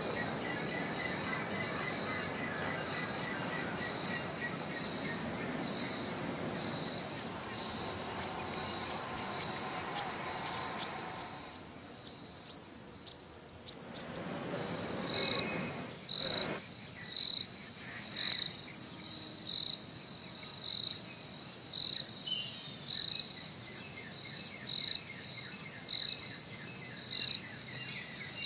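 Outdoor chorus of insects chirping with bird calls. Well into the clip the steady chorus drops away, a few sharp high bird chirps sound, and then a high call repeats about once a second.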